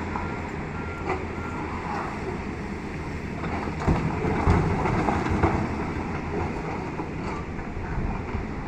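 Liugong CLG924E excavator working: the engine runs steadily under irregular knocks, with a beeping alarm for the first second and a half.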